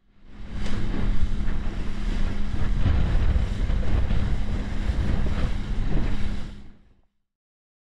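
Rigid inflatable boat running fast through choppy sea: wind buffeting the microphone, spray and the hull slapping the waves, over a steady engine hum. It fades in at the start and fades out about seven seconds in.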